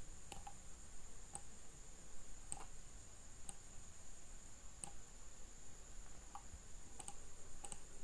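Computer mouse clicks, about ten of them at irregular spacing, over a faint steady high-pitched whine.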